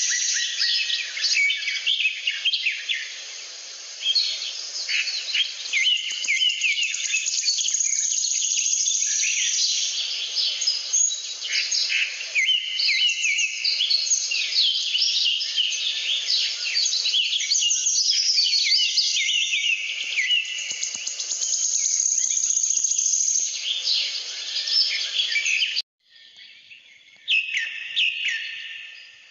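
Dense, continuous chirping and twittering of many small birds. It cuts out suddenly for a moment about three seconds before the end, then resumes.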